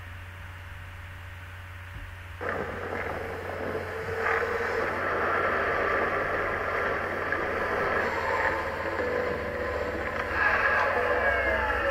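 Boosted electric longboard riding on asphalt: a steady rolling hiss of wheels on pavement, mixed with whining tones that glide up and down in pitch near the end. It starts about two seconds in, after a low hum.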